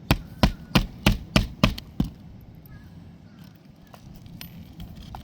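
Hammer driving a roofing nail into an asphalt shingle: seven sharp strikes about three a second, stopping about two seconds in.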